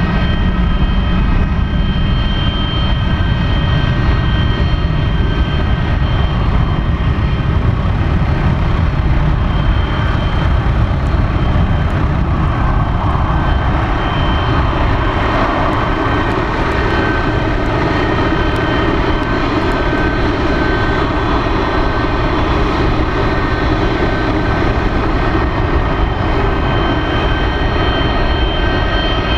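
A Boeing 737-200's Pratt & Whitney JT8D engines running at taxi power: a loud, steady rumble with a high whine of several steady tones above it. From about halfway through, the low rumble thins and a harsher mid-range noise grows as the jet goes past.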